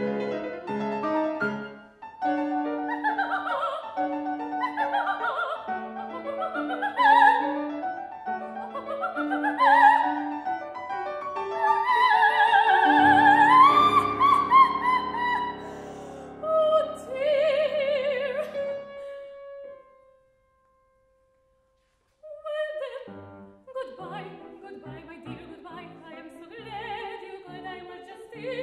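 Female opera singer singing with grand piano accompaniment: rising vocal runs, then a long high note with vibrato about halfway through, a gap of about two seconds, and quicker, patter-like singing over short piano chords.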